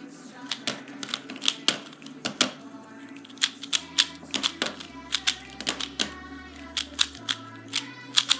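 Plastic speed cube (Valk 3) clicking as its layers are turned quickly one-handed, irregular sharp clicks about two to three a second. Background music with low bass notes comes in about halfway through.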